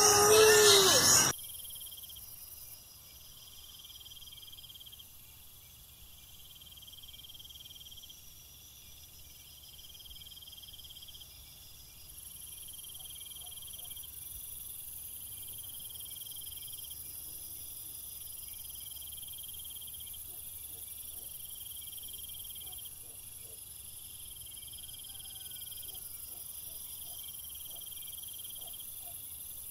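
Insects trilling steadily in a high-pitched, faintly pulsing chorus. It follows a brief loud burst of sound in the first second or so.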